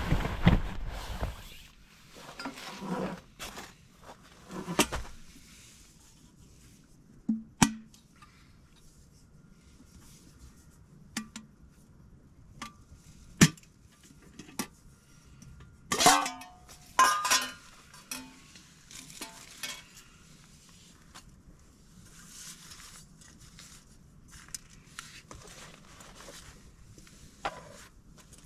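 Scattered knocks and clinks of things being handled, some single and some in quick clusters, a few with a short metallic ring.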